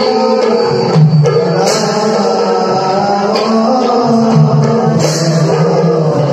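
Assamese Bhaona music for Krishna's entrance dance: khol barrel drums beating with a group singing over them, and hand cymbals crashing about a second and a half in and again near five seconds.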